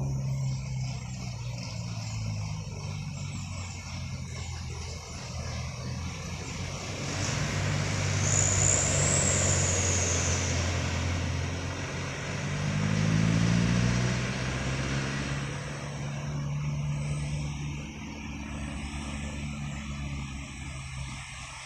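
Diesel engines of a truck and a bus working through a tight bend, with engine noise throughout. One engine note climbs in pitch as it accelerates about thirteen seconds in, and a brief high squeal comes about eight seconds in.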